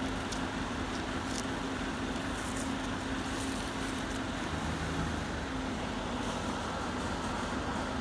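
An engine running steadily: a constant hum with one held tone, and a few faint clicks over it.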